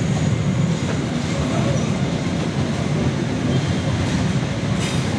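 Electric commuter train (KRL Commuter Line multiple unit) passing close by: a steady rumble of its wheels on the rails.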